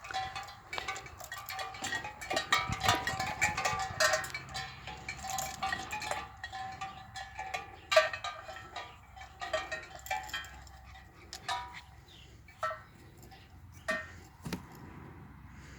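Metal bells on a shaken noise-training toy clanking and jingling with a ringing tone. It is busy at first, then thins to a few separate clanks near the end.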